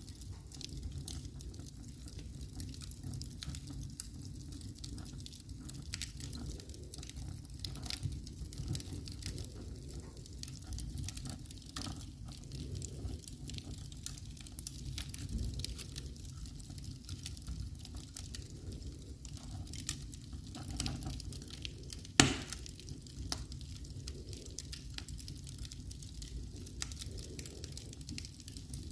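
Wood fire crackling in a fireplace: a steady low rumble with scattered crackles throughout and one loud, sharp pop about two-thirds of the way through.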